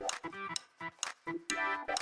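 Upbeat background music: plucked or keyed notes over a steady beat.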